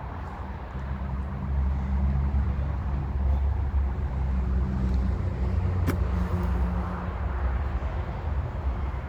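An engine running steadily with a low hum, growing slightly louder about a second and a half in, and a single sharp knock about six seconds in.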